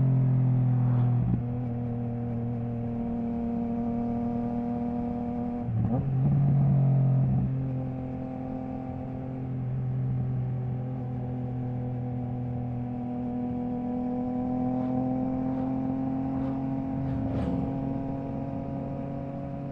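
Triumph Trident 660's inline three-cylinder engine through a baffle-less Zard stainless full exhaust, running at a fairly steady pitch that drifts slowly up and down. The run is broken briefly a few times, about a second and a half in, around six seconds in and near the end, typical of quick gear changes.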